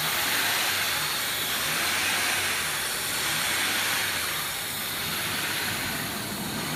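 1999 Honda V6 engine idling steadily under the open hood, with an even hiss over it.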